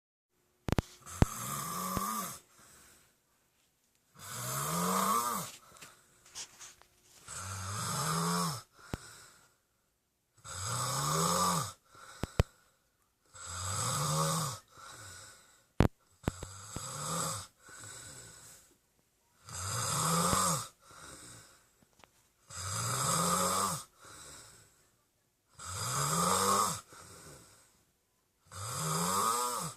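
A sleeping boy snoring, one long snore about every three seconds, each rising in pitch, with a quieter breath between them. A couple of sharp clicks, near the start and about halfway through.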